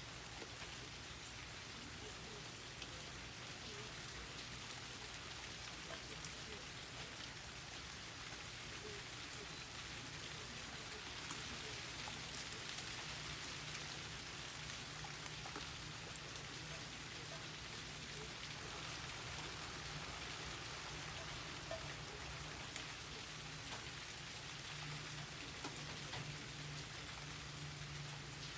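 Steady rain falling: an even hiss with individual drops ticking on nearby surfaces, a little louder around the middle.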